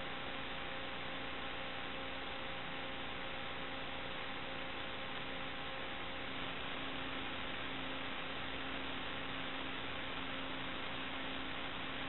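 Steady electronic hiss with a faint hum of several steady tones under it: the recording's own noise, with no other sound.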